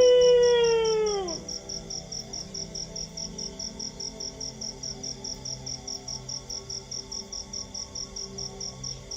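A dog's howl, already sounding at the start, holds one pitch, then falls away and ends about a second and a half in. Throughout, crickets chirp steadily at about five chirps a second.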